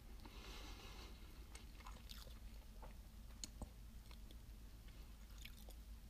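Near silence: a low steady hum with scattered faint clicks and ticks.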